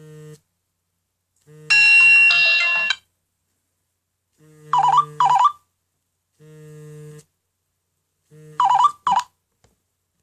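Nokia N97 Mini ringtone playing with the vibration alert on. The vibration motor buzzes in short pulses about every two seconds. Between the pulses come a bright chime a couple of seconds in and two pairs of quick chirping tones, near the middle and near the end.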